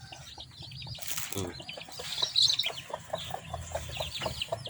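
Chickens clucking: a quick run of short calls, busiest in the second half.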